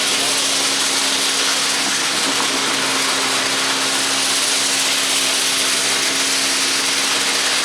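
Machinery running steadily: an even, loud hiss over a constant low engine hum, with no rhythm or separate impacts.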